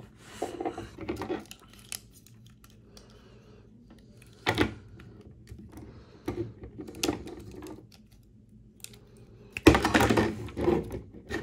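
Clicking and tapping of die-cast and plastic action-figure parts being handled and fitted, with a sharp knock about four and a half seconds in. Near the end comes a burst of clattering as pieces are knocked over and fall onto the table.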